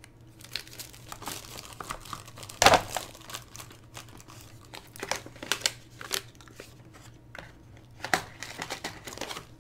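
Plastic packaging bags crinkling and rustling as they are handled, in irregular crackles, the loudest about three seconds in.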